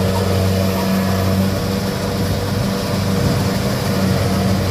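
Kubota DC-70 combine harvester's diesel engine running at a steady speed, an even drone.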